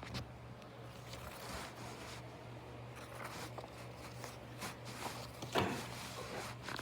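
Handling of a CD jewel case and its booklet: scattered soft rustling and small plastic clicks, the loudest about five and a half seconds in, over a faint steady hum.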